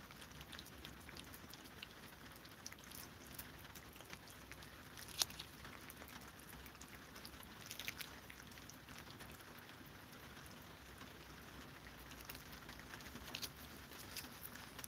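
Cats licking lickable paste treats from squeeze tubes: faint, irregular wet clicks and smacks of tongues, with one sharper click about five seconds in.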